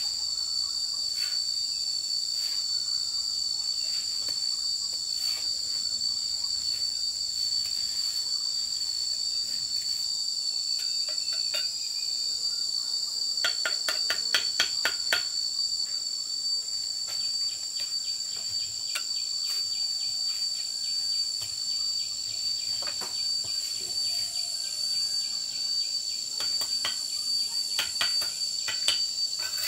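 Steady high-pitched chorus of insects, with scattered sharp taps and knocks of bricks being set and tapped into cement mortar; a quick run of taps comes about halfway through and a few more near the end.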